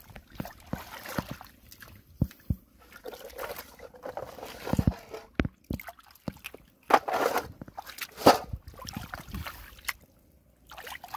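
Hands sloshing and splashing through shallow muddy water, feeling along the bottom for freshwater mussels, with scattered small knocks. Two louder splashes come about seven and eight seconds in.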